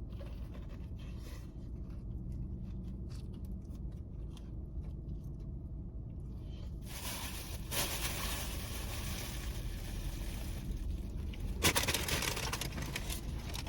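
Biting into and chewing a crispy fried chicken sandwich: faint small ticks at first, then crunching from about seven seconds in, loudest near the end, over a low steady hum.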